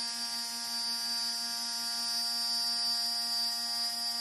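CNC router spindle running a zirconium-coated end mill along the edge of a 16 mm cast aluminum plate on a light finishing pass: 0.2 mm depth of cut at the full 16 mm step down. It gives a steady whine made of several constant tones, the highest the strongest, over a hiss of cutting noise.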